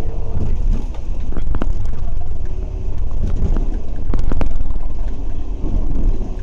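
Bus running on the road, heard from on board: a steady low engine and road rumble with a faint whine, and short rattles and knocks from the bodywork about a second and a half in and again around four seconds in.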